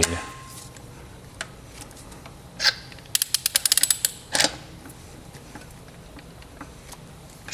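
Hand ratchet clicking as a lug nut is run onto a wheel stud with a keyed tapered socket: a couple of single clicks, then a quick run of clicks lasting about a second, then one more click.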